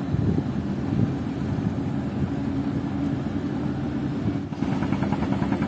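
An engine running steadily with a fast, even pulse. About four and a half seconds in, a higher, rattling note joins it.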